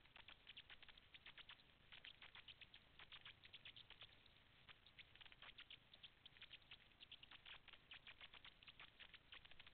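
Faint underwater crackling: a dense, irregular stream of small clicks and pops, the ambient sound of a rocky reef, heard through a submerged camera.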